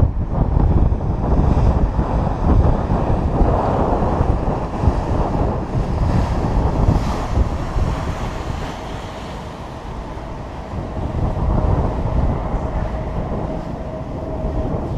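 Wind buffeting a GoPro Hero 2's microphone, a steady low rumble, with a faint steady hum coming in about halfway through.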